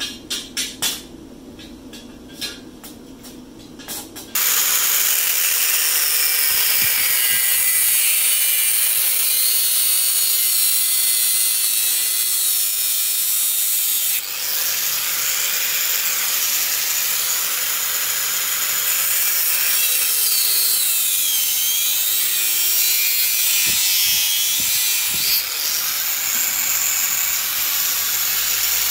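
Angle grinder cutting through a metal bicycle frame tube: a loud, steady, high-pitched grinding that starts suddenly about four seconds in, after a few light clicks. The motor's pitch dips and recovers a few times as the disc is pressed into the tube.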